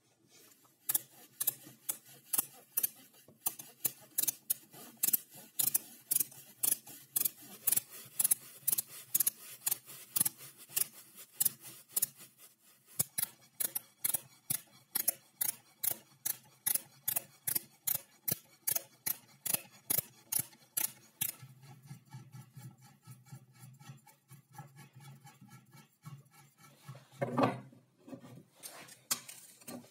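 Hand ratchet clicking in short, even strokes, about two to three clicks a second, as a nut is run down a threaded rod; the clicking stops about two-thirds of the way through. A single louder knock comes near the end.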